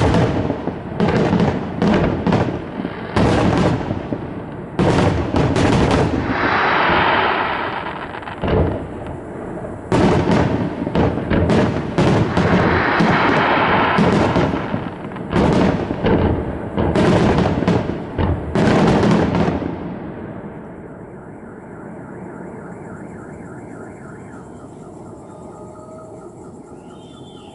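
Fireworks display: a rapid barrage of loud shell bursts, with stretches of crackling between the bangs. The bursts stop about two-thirds of the way in, leaving a faint background.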